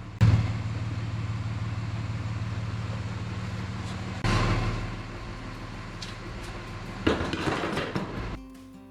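A machine running steadily with a low, evenly pulsing hum, with two louder surges of noise about four and seven seconds in. Background music starts near the end.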